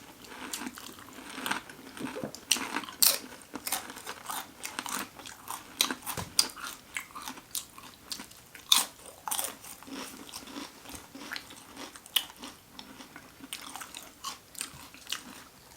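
Close-up biting and chewing of a toasted sandwich: irregular crisp crunches and mouth sounds, some bites louder than others.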